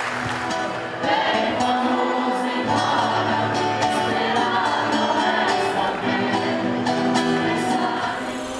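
Background music with singing, a choir-like vocal line over steady held notes, coming in over the last of a crowd's applause in the first second.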